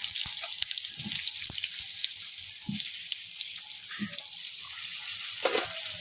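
Potato pieces frying in hot mustard oil in a kadai: a steady crackling sizzle, with a few short low knocks from stirring.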